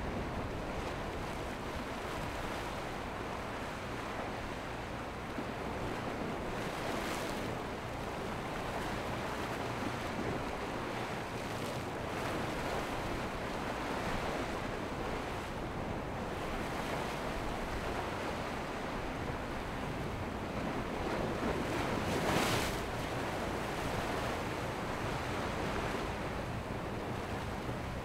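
Rough surf: waves breaking and churning in a steady rush, with wind buffeting the microphone. One wave breaks louder late on.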